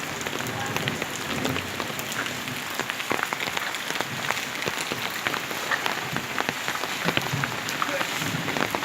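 Heavy rain falling: a steady hiss, thick with the sharp taps of individual drops striking.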